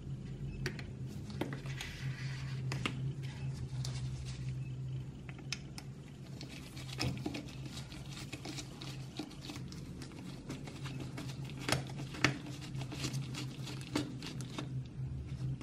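Screwdriver turning screws out of a rusted diecast model car chassis: irregular small clicks and gritty scraping of metal on metal, with a few sharper clicks near the end, over a steady low hum.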